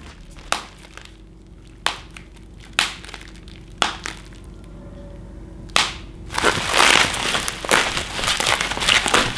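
Bubble wrap being handled and torn open: a few sharp single pops about a second apart, then from about six seconds in, loud continuous crinkling and crunching of the plastic.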